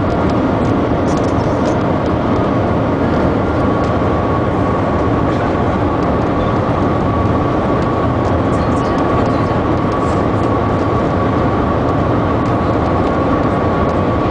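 Maglev train cabin noise at a cruising speed of about 431 km/h: a loud, steady rushing sound with a faint steady whine running through it.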